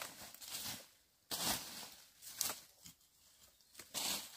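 Several short bursts of rustling and scraping, spaced about a second apart.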